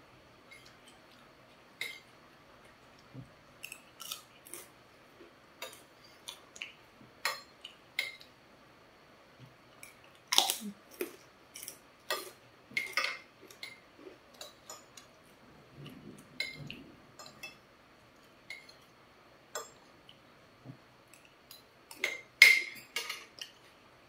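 Metal fork and spoon clinking and scraping on a plate while the last of a meal is gathered up: scattered sharp clinks, the loudest about ten seconds in and a cluster near the end.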